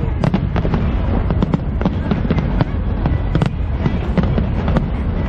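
Fireworks display going off: a dense, rapid run of sharp bangs and crackles over a continuous low rumble.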